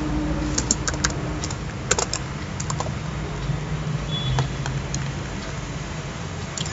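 Computer keyboard keys clicking in a few short, scattered runs of keystrokes, over a steady low hum.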